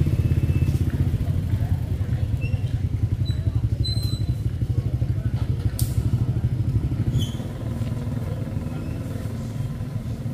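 A small engine running close by with a fast, even pulse; it eases off somewhat after about seven seconds.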